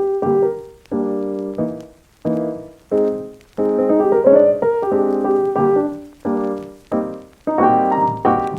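Background piano music: chords and short melodic phrases, struck and left to fade between phrases.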